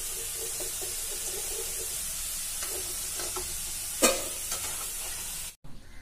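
Potato sticks deep-frying in hot oil, a steady sizzle, as a slotted ladle lifts them out. About four seconds in, the ladle gives one sharp knock against the pan or plate. The sizzle cuts off suddenly near the end.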